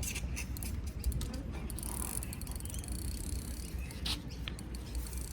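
Fishing reel being cranked to work a snagged line, heard as runs of rapid clicks over a low rumble.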